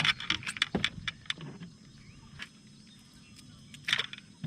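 A quick run of sharp clicks and rattles, then a pause and another short rattle about four seconds in, from fishing tackle and a freshly caught bass being handled in the boat.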